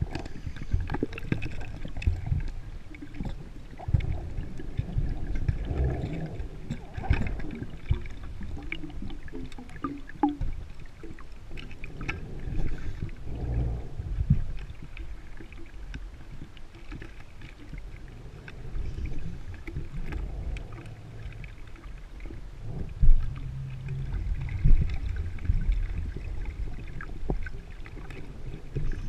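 Underwater scuba breathing: bursts of exhaled bubbles from a regulator come every few seconds over a low rumble, with a few sharp knocks.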